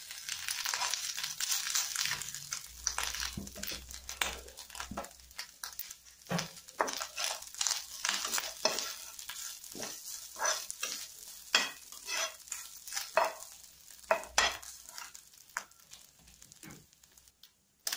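Grated coconut sizzling in hot oil in a frying pan with roasting dals, ginger and curry leaves, while a slotted steel spatula stirs it, scraping and knocking against the pan in quick irregular strokes. The sizzle is loudest in the first few seconds, and the stirring thins out near the end.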